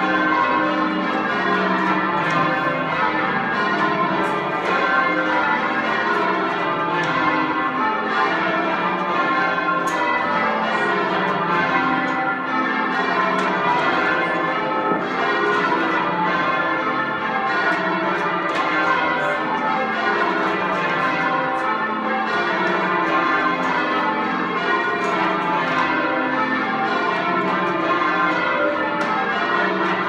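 Ring of full-circle church bells, rung by rope from the ringing chamber in rounds: a steady, unbroken succession of overlapping bell strikes at different pitches.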